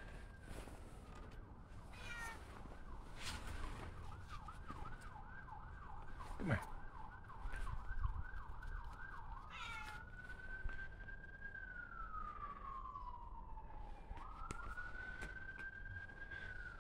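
Emergency-vehicle siren, faint: a slow rising and falling wail that switches to a fast yelp for several seconds, then returns to slow wails.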